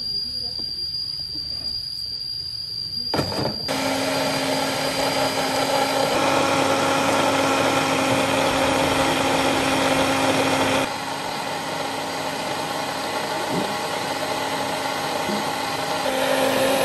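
Electric blender motor switching on about three and a half seconds in and running steadily. Its level drops a little about eleven seconds in and rises again near the end.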